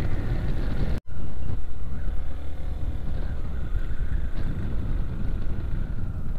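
Motorcycle engine running steadily at low road speed, with a brief dropout to near silence about a second in.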